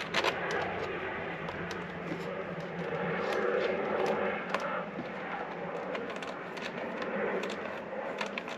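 Small clicks and scrapes of screen-mounting parts and fixings being handled and fitted, over a steady background rumble.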